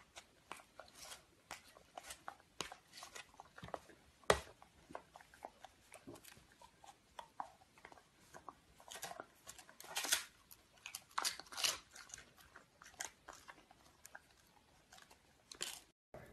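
A dog biting and chewing crunchy crispbread: an irregular run of dry, crackling crunches, the sharpest one about four seconds in and thicker clusters around ten to twelve seconds.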